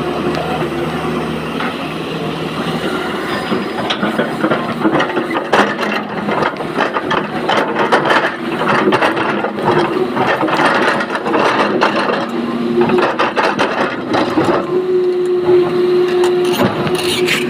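Excavator working: its engine and hydraulics running with a steady hum, under a dense clatter of stone and rock knocking, as in loading rock into a dump truck.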